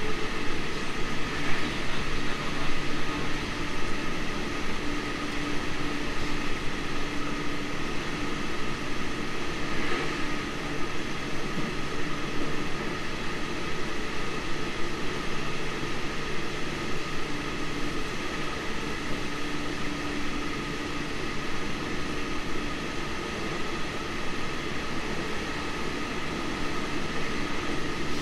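Running noise of a JR Central 313 series 2500 subseries electric train, heard from inside the car: a steady rolling rush with a few constant hums, at an even speed.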